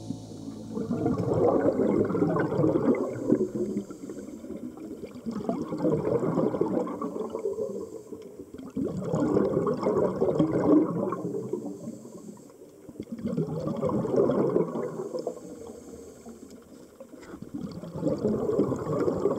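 Bubbling bursts heard underwater, coming about every four seconds: a scuba diver's exhaled breath bubbling out of the regulator.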